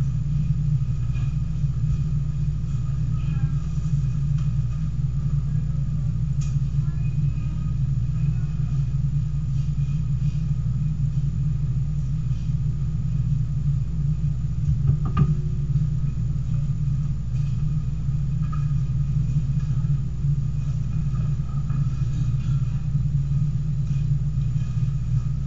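Steady low hum that stays constant throughout, with one faint click about fifteen seconds in.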